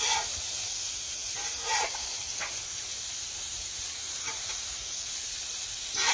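Burgers and asparagus sizzling on a Blackstone flat-top griddle: a steady hiss, broken by a few short scrapes or clanks of a spatula on the steel as the food is flipped and stirred.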